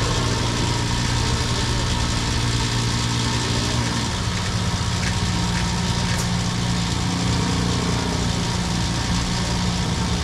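An engine idling steadily, a continuous low hum whose note shifts slightly about four seconds in.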